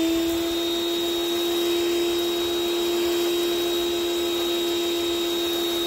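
Sun Joe electric pressure washer running under load, its motor and pump giving a steady whine over the hiss of the soap nozzle spraying a mist of soap onto a car wheel.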